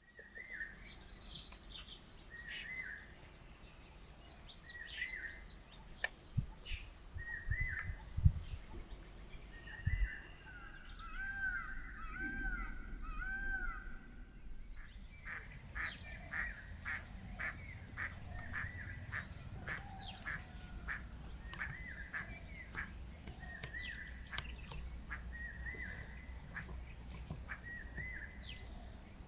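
Outdoor birdsong: several birds calling and chirping with short repeated calls throughout. A steady high-pitched whine sounds through the first half and stops about halfway. A few sharp low thumps come between six and ten seconds in, the loudest near eight seconds.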